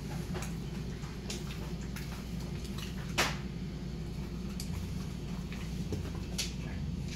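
A dog chewing meat, making irregular short clicks and smacks, with one louder click about three seconds in, over a steady low hum.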